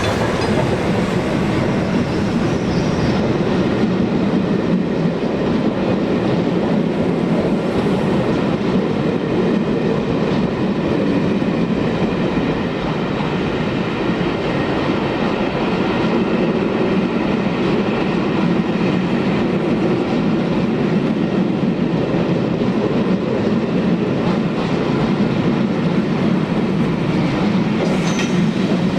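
A train passing close by: a steady, loud rumble of wheels on the rails.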